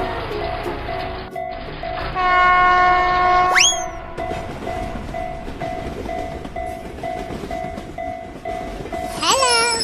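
Railroad crossing warning bell ringing in a steady repeating ding over the rumble of a passing train. A train horn sounds about two seconds in and ends in a quick rising sweep, and a cluster of rising whistle-like glides comes near the end.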